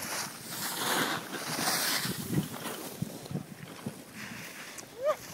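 Alpine skis carving on packed snow: two hissing scrapes in the first two seconds and a fainter one about four seconds in, with wind on the microphone. A short pitched call that rises and falls starts right at the end.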